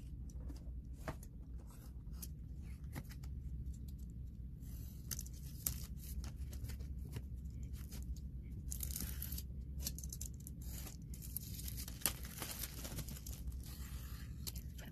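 Clear plastic shrink-wrap on a tablet's box being cut with a blade and torn off, crinkling and rustling with scattered sharp clicks and crackles.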